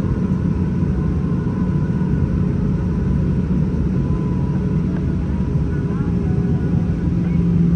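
Steady low drone inside the cabin of an Airbus A320-214 from its CFM56 engines running at idle as the jet taxis on the apron. It grows slightly louder near the end.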